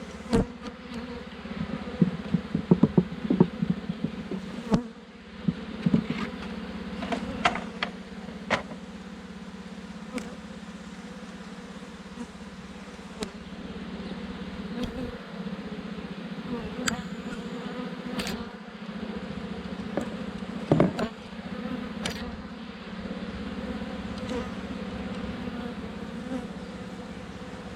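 Honeybees from an opened nuc buzzing steadily as a low hum, with scattered clicks and knocks of wooden hive frames being handled.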